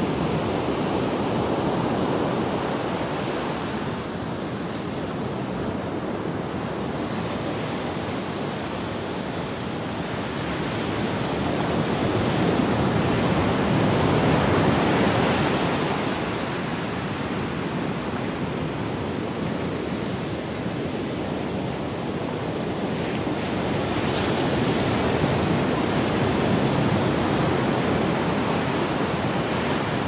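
Ocean surf breaking and washing in a steady rush, swelling louder twice as larger waves come in.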